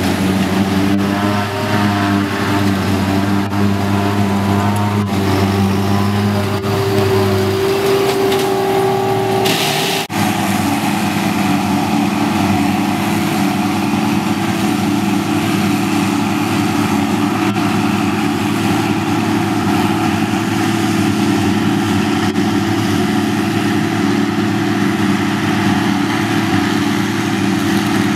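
Heavy diesel farm machinery, tractors and a forage harvester working at silage, running steadily under load. The engine note changes abruptly about ten seconds in.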